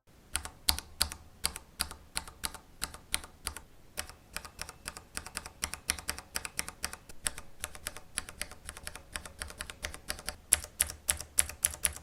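Cherry MX mechanical key switches on a switch tester being pressed over and over, a quick, uneven run of sharp plastic clicks, several a second.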